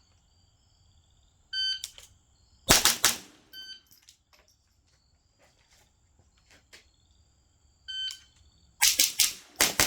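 A shot timer beeps, and about a second later an AR-style rifle fires one loud shot. Near the end the timer beeps again and is followed by a fast string of about four shots.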